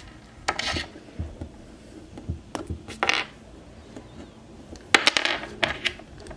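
Small hard plastic parts of an action figure clicking and rubbing as a swap-out hand is worked onto its wrist peg, close to the microphone: scattered sharp clicks with a quick cluster about five seconds in.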